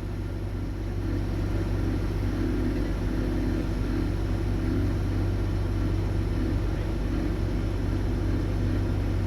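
Combine harvester running steadily while harvesting soybeans: a constant low engine and threshing drone.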